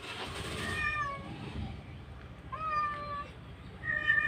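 Domestic cats meowing: three drawn-out, wavering calls, the last the loudest, from a group of tomcats crowding around a single female. A brief noisy hiss comes right at the start.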